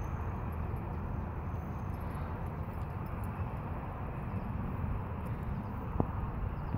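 Steady outdoor background noise: a low, uneven rumble with a rushing hiss over it, and one short knock about six seconds in.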